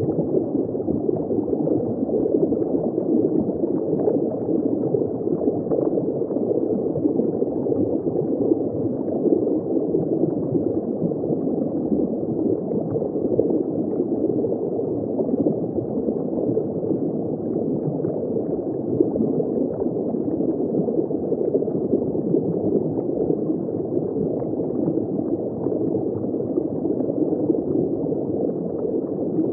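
Steady underwater bubbling and gurgling water noise, even throughout, with no animal calls standing out.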